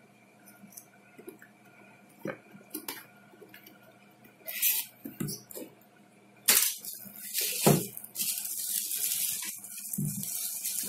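A cardboard box being opened and unpacked. First come a few light taps and scrapes of a thin metal tool working at the box's edge. Then, from about six and a half seconds in, a long rustling and scraping of cardboard and packaging as the headphones are pulled out.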